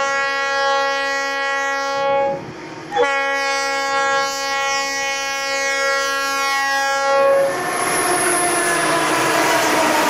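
Conrail diesel freight locomotive's horn blowing a steady multi-tone chord, breaking off about two seconds in. A horn sounds again for about four more seconds, then gives way to the steady noise of the train passing close by.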